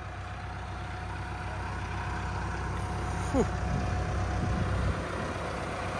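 Pickup truck engine idling steadily with a low rumble, slowly getting louder, with a brief falling squeal about halfway through.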